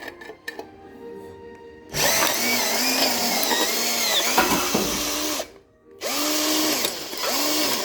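Electric drill driving a sheet-metal shear adapter cutting into 0.75 mm steel decking. It starts about two seconds in, its motor pitch dipping and recovering under load, stops for about half a second past the middle, then runs again. The cutter is labouring to climb the decking's raised rib, where it jams.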